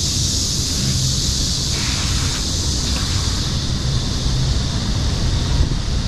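A steady, high, shrill hiss of a cicada chorus in the trees, with a low rumble of wind buffeting the microphone underneath.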